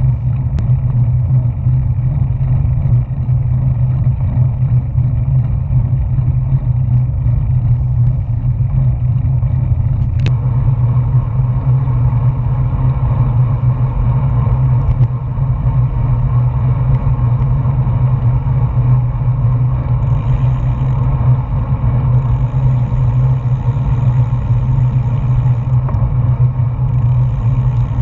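Wind rushing over the microphone of a GoPro mounted on a moving road bike: a loud, steady, buffeting low rumble.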